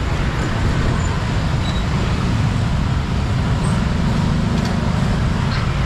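Steady, loud low rumble of road traffic.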